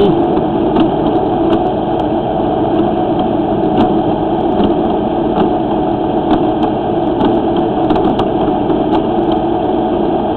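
An engine running steadily at idle, with a few faint clicks now and then.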